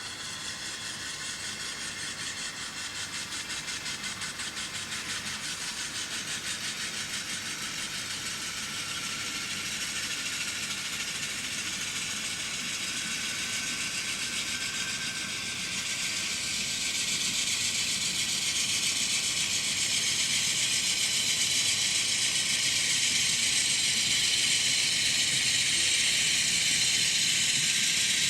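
N scale GE Dash 9-44CW model locomotives running on the layout track: a high whirring of motor and gears with a rapid clatter of wheels, growing steadily louder. A faint whine slowly rises in pitch.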